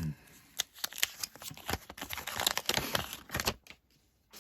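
Baseball cards being handled and flipped through by hand, the card stock sliding and snapping against itself in a quick, uneven run of crisp clicks and rustles that stops about a second before the end.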